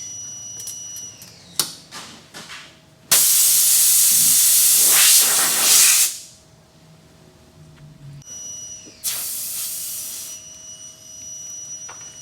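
Pressurized air hissing at a punctured tire during a plug repair, in two bursts: a loud one of about three seconds, then a shorter one about three seconds later. A couple of sharp clicks come shortly before the first.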